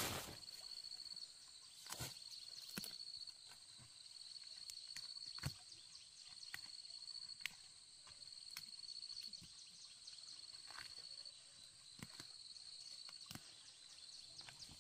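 Faint, scattered snaps and rustles of weeds being pulled by hand from garden soil, about one every second or so. A thin, steady high tone runs behind them, breaking off now and then.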